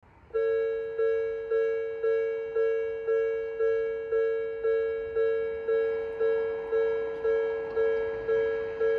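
Japanese railroad level crossing's electronic warning bell ringing about twice a second, each two-tone strike fading before the next. It starts a moment in, as the crossing's red lights begin flashing to warn of an approaching train.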